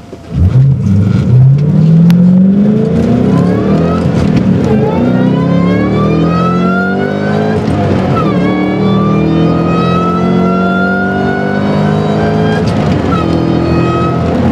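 Supercharged 2006 Ford Mustang GT's 4.6-litre V8 with an M90 Roushcharger accelerating hard, pulling up through the gears; the supercharger's whine rises with the revs over the exhaust. The pitch drops at each upshift, most clearly about 8 and 13 seconds in.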